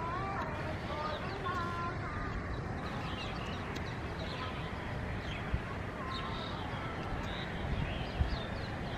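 Outdoor city ambience: a steady background hum with scattered short bird chirps, and faint distant voices in the first couple of seconds.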